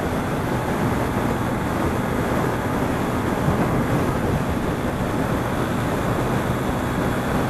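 Motorcycle cruising steadily at highway speed, its engine holding a constant pitch under loud wind rush on the rider's camera microphone.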